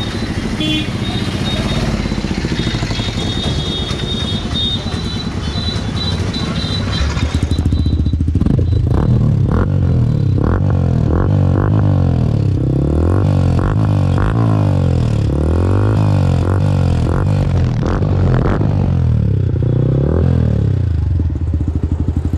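Yamaha R15 V4's 155 cc single-cylinder engine being blipped up and down over and over through an aftermarket Akrapovič-style slip-on muffler being test-fitted. The revving starts about eight seconds in, after some metal clatter, and dies down shortly before the end.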